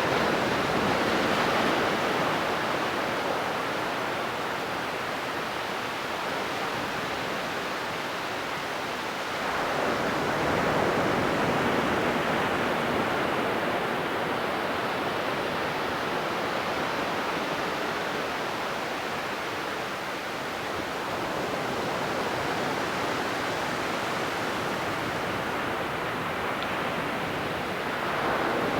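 Ocean waves washing onto a beach: a continuous rush of surf that swells as a wave breaks at the start, again about ten seconds in, and once more near the end.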